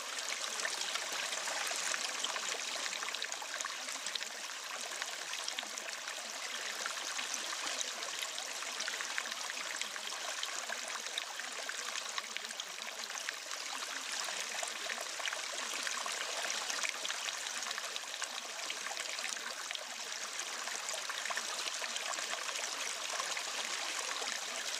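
Steady running water, like a flowing stream: an even, unbroken trickling rush that does not change.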